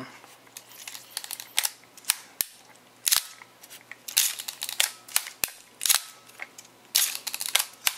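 Nikon FG 35mm SLR being fired and wound over and over: sharp shutter-release clicks, each followed by the ratcheting of the film advance lever, about a dozen clicks in all. This advances the test roll frame by frame.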